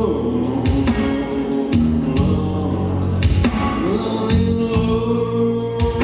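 Pop song playing through a PA during an instrumental break: held keyboard chords and bass over a steady drum beat of about two beats a second.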